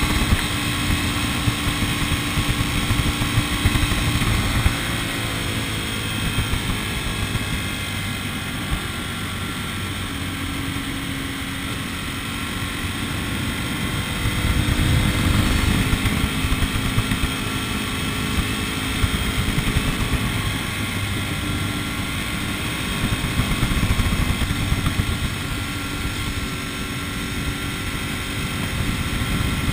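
Vehicle on the road, with its engine running under a steady rumble of road noise. The engine note shifts slowly in pitch and swells louder about halfway through, as with changes in speed.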